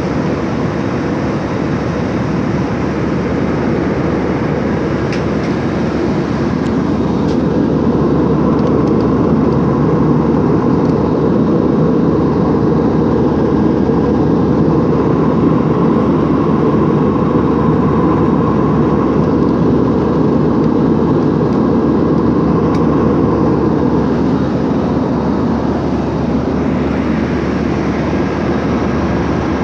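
Steady cabin noise of a jet airliner in flight, heard from inside the cabin: engine and airflow noise with a faint steady hum, growing a little louder about a quarter of the way through.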